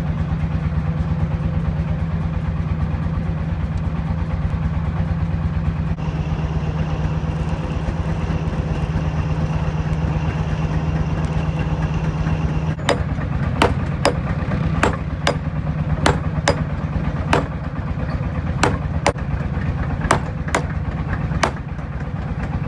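Steady drone of a forge air blower driving a charcoal fire. Just before halfway, sharp metallic strikes join it, an uneven two or so a second, each with a brief ring, typical of hammer blows on steel at an anvil.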